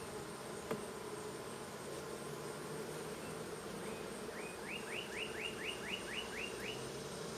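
Honey bees buzzing steadily around an opened hive, disturbed as their frames and boxes are pulled apart. A rapid run of about ten short rising chirps comes in over the second half.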